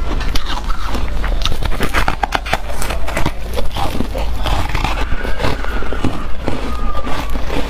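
Slushy ice being chewed close to the microphone: a dense, irregular run of crunches and crackles.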